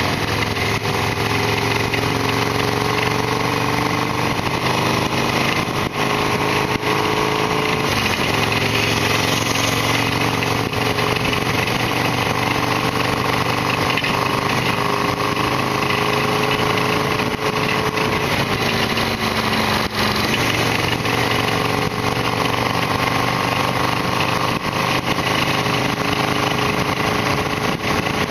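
Harley-Davidson Sportster XL1200R's air-cooled V-twin running under way, its pitch climbing slowly, dropping sharply about eight seconds in, then climbing again and falling back around twenty seconds in.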